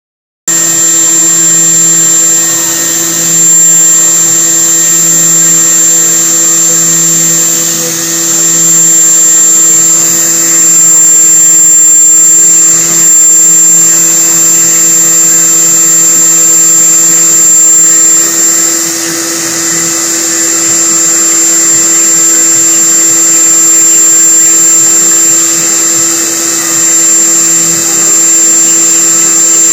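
Haas CNC milling machine cutting TUSQ synthetic ivory with an end mill: a steady, high-pitched spindle whine over a continuous cutting noise. The level dips briefly a couple of times.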